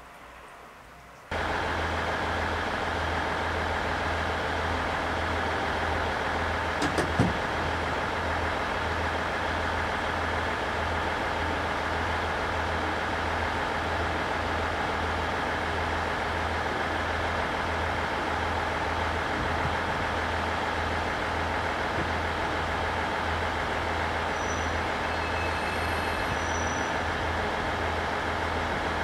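Diesel railcar engine running steadily with a low, evenly pulsing throb; the sound starts abruptly about a second in, and a couple of brief clicks come about seven seconds in.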